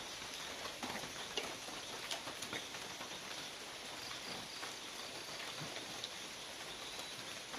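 Forest ambience: a steady high-pitched hum over an even background hiss, with scattered small clicks and chirps.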